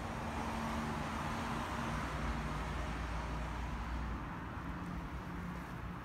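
A motor vehicle's engine running, a steady low hum, fullest for the first few seconds and easing off after about four seconds.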